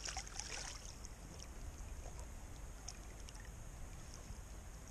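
Steady rush of flowing creek water, with a low rumble underneath and a few faint ticks.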